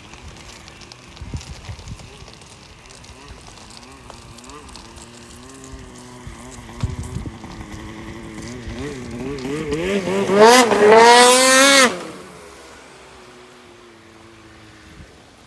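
Polaris RMK snowmobile's two-stroke engine during a water skip: faint and wavering in pitch at first, then revving higher and growing much louder, and dropping away abruptly about twelve seconds in.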